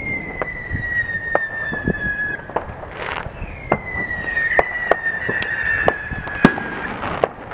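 Fireworks going off all around, with frequent sharp bangs and pops. Two long whistles fall slowly in pitch, one after the other, and a brief hiss comes between them.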